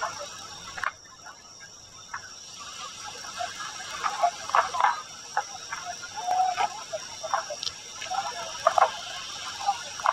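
Night-time insect and frog chorus: a steady high-pitched insect trill, with short frog calls scattered irregularly through it.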